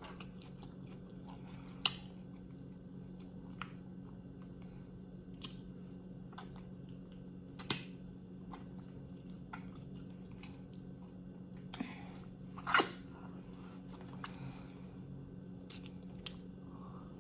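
Close-up mouth sounds of someone chewing oxtail: soft wet chewing with scattered lip-smacking clicks, one louder smack about thirteen seconds in, over a steady low hum.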